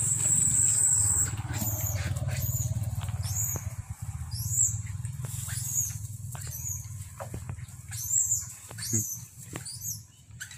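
Macaques giving short, high-pitched squeaks, a dozen or so at irregular intervals, over a low steady hum that fades after about four seconds.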